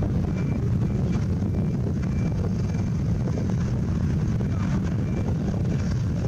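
Steady low outdoor rumble, with faint short high-pitched beeps repeating about every half second that stop near the end.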